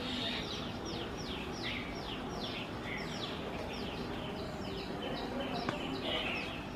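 Shikra calling: a rapid series of sharp, high notes, each sliding downward, about four a second, over a steady background hiss. A single sharp click comes near the end.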